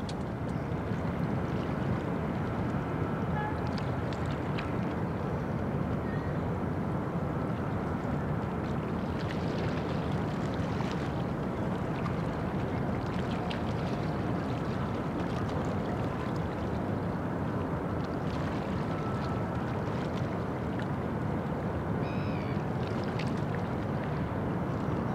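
Steady low rumble of the cruise ship Oriana's machinery carrying across the harbour water as she manoeuvres.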